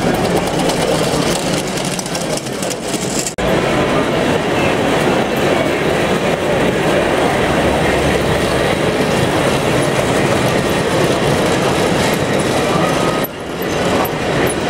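Model trains running on metal track, their wheels rumbling and clicking over the rail joints. The sound dips sharply twice, about three and a half seconds in and near the end.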